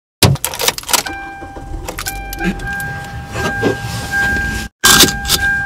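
Handling noises inside a car: sharp clicks, knocks and a jangle like keys. From about a second in, a steady high electronic tone runs under them, broken once briefly.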